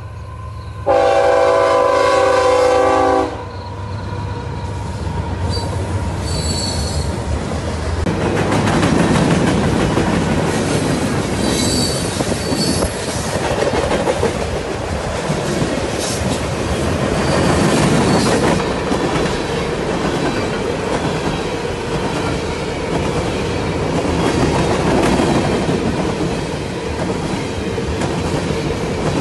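Train horn sounds one loud blast of about two seconds, starting about a second in. The train then passes close by: a steady rumble of steel wheels on the rails with clatter, and a few brief high wheel squeals.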